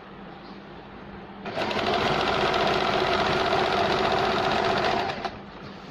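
Sewing machine stitching a zigzag with a rolled-hem (pico) foot, starting about a second and a half in and stopping about a second before the end, with a steady run of rapid needle strokes.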